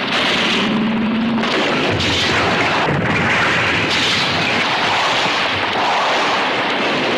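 Loud, continuous booming din of explosions, changing character at cuts about two, three and four seconds in.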